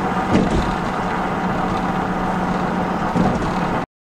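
Steady road noise and engine hum inside a moving car's cabin, cutting off abruptly near the end.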